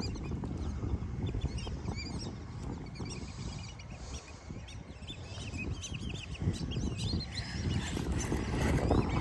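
Birds calling in many short chirps, with a few clearer looping calls near the end, over a steady low rumble on the microphone.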